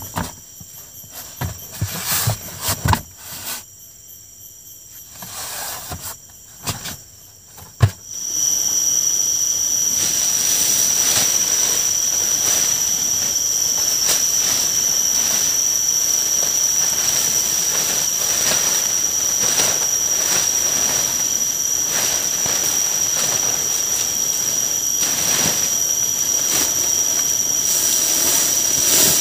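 A few knocks and rustles of handling, then about eight seconds in a loud, steady, high-pitched cicada chorus starts suddenly.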